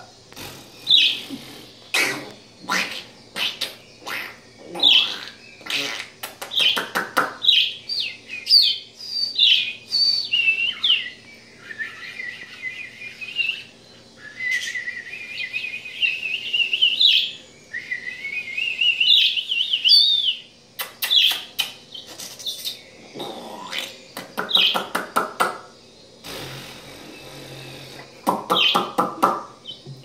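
Budgerigar chattering: sharp clicks and short chirps, then a long rambling warble. A few lower, rougher burp-like sounds come in the last seconds.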